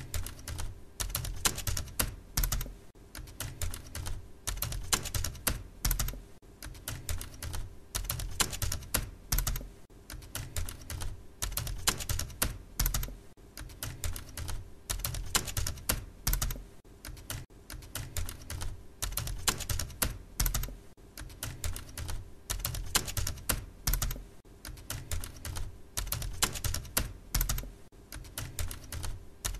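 Fast typing on a computer keyboard, key clicks in irregular runs with short pauses.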